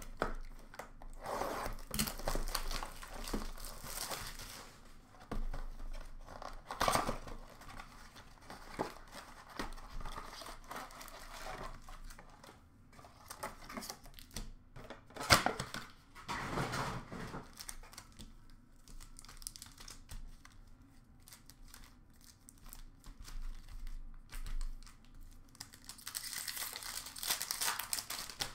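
Hockey card pack wrappers being torn open and crinkled while a cardboard blaster box is handled: rustling that comes and goes in bursts, with one sharp snap about halfway through.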